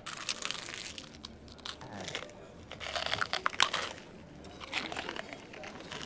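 A whole langoustine being bitten and chewed shell and all, its shell crunching and crackling in three bouts: one at the start, the loudest about three seconds in, and a shorter one near five seconds.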